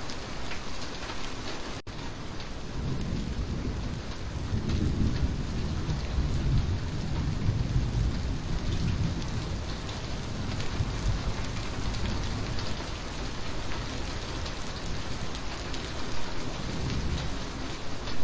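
Steady rain falling, with a low rolling rumble of thunder that swells a few seconds in and again near the end. There is a momentary dropout about two seconds in.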